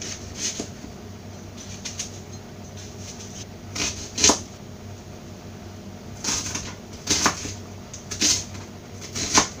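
Chef's knife cutting an onion on a plastic cutting board: irregular knocks of the blade meeting the board, the loudest about four seconds in, with more strokes in the last few seconds.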